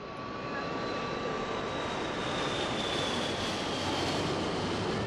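Steady aircraft engine noise fading in, with a thin high whine that slides slowly lower.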